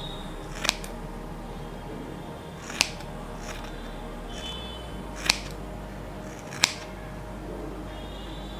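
Four sharp clicks, spaced unevenly one to two and a half seconds apart, over a steady low hum.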